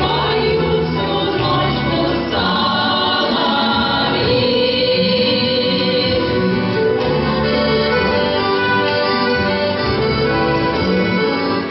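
A folk ensemble choir singing with accordion accompaniment, a steady sung melody over held chords.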